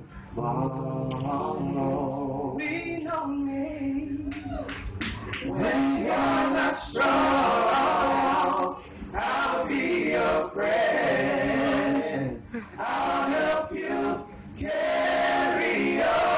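Male vocal group singing in harmony, several voices holding sustained chords, with short breaks between phrases.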